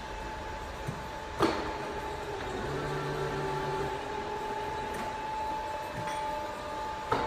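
Volz FUS 33 universal milling machine running with a steady whine from its drives. A lower hum joins briefly in the middle, and two sharp clacks, about a second and a half in and near the end, come as its control-panel switches are worked.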